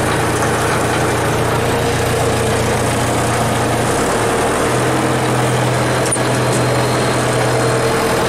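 Farm tractor engine running steadily while driving across a field; its pitch steps up slightly about four to five seconds in.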